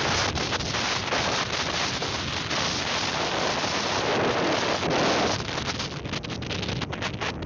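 Wind rushing over the microphone of a camera riding along a road on a moving vehicle, a steady loud rush of noise with rapid buffeting near the end.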